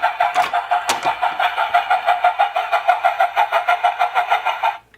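Electronic sound effect from a battery-powered Peppa Pig Grandpa Pig's toy train's speaker: a rapid pulsing tone, about eight pulses a second, that cuts off sharply near the end.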